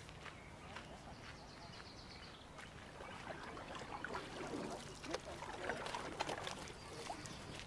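Footsteps on a path, about two a second, for the first couple of seconds, then birds chirping and calling over a steady low background of outdoor noise.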